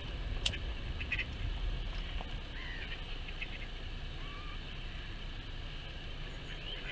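Birds calling around the lake: scattered short chirps and a few brief gliding calls, over a low wind rumble on the microphone. A single sharp click about half a second in.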